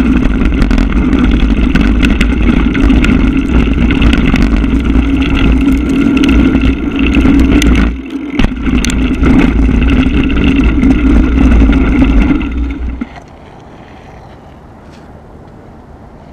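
Mountain bike being ridden on a trail, heard through a GoPro: loud rushing noise with a steady hum and frequent rattles and knocks from the ride. It cuts off abruptly about 13 seconds in, leaving a quieter steady background.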